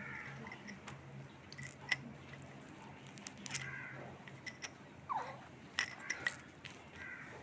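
A baby's small mouth clicks and brief squeaky sounds, scattered and irregular, with one short falling squeak about five seconds in, over a steady low hum.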